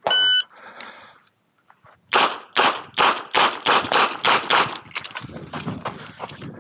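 Shot timer's start beep, then after a pause of under two seconds a rapid string of about eight 9mm revolver shots from a Smith & Wesson 929 in about three seconds, followed by quieter cracks.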